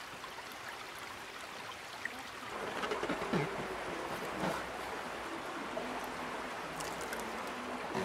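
Shallow woodland stream trickling steadily. About two and a half seconds in, the water noise gets louder.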